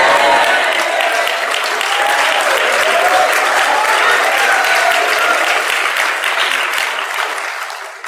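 Congregation applauding, with voices calling out through the clapping; it dies away near the end.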